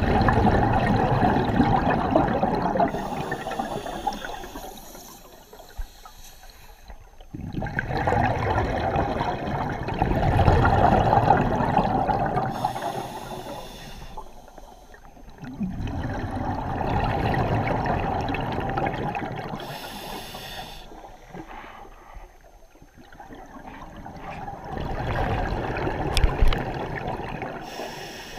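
A scuba diver breathing through a regulator, heard underwater: four long bursts of bubbling exhaust bubbles, each followed by a short hissing inhalation.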